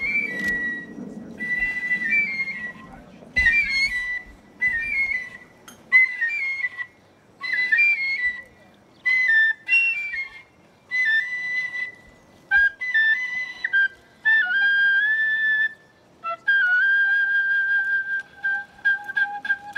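High-pitched flute played solo in short, quick, ornamented phrases separated by brief pauses, then settling into one long held note about two-thirds of the way through, with a fainter lower tone beneath it and a light, fast clicking near the end.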